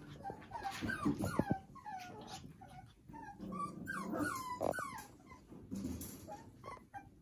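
Havanese puppies whining and whimpering in many short, falling cries, over and over, easing off near the end. A few sharp clicks come about a second in.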